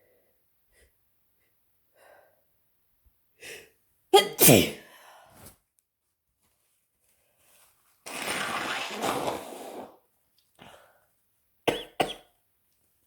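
Cold sneezes from a person with a head cold: a few small breaths and sniffs build up to one loud sneeze about four seconds in, its voiced end falling in pitch. A noisy rush of air lasting about two seconds follows, then two quick sharp sneezes near the end.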